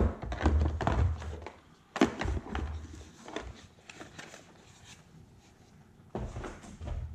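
Cardboard packaging, plastic adapter tips and cables being handled and set down on a wooden table: irregular clicks, knocks and low thumps, loudest at the start and about two seconds in, with a lull in the middle and more handling near the end.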